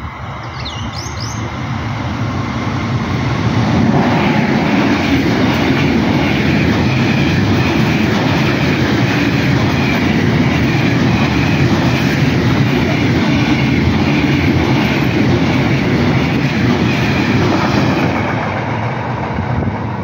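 Freight train hauled by a DB class 185 TRAXX electric locomotive passing close by: the noise of the train builds over the first few seconds as it arrives, the wagons' wheels run loud and steady on the rails, and it eases near the end as the tail goes by. Birds chirp briefly at the start.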